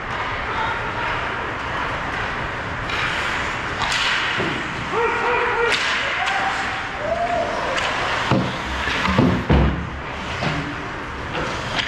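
Ice hockey game: skates, sticks and puck clacking on the ice, with scattered shouts from players. A few loud knocks come about eight to nine and a half seconds in, as play reaches the boards beside the camera.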